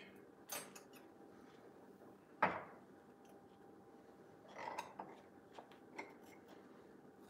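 A table knife clinking and knocking against a glass jar and a plate while jelly is scooped and spread on toast: a handful of separate light clinks, the loudest about two and a half seconds in.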